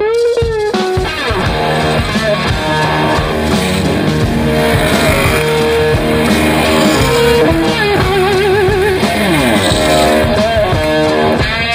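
Rock music led by electric guitar, with sliding notes and a wavering held note about eight seconds in.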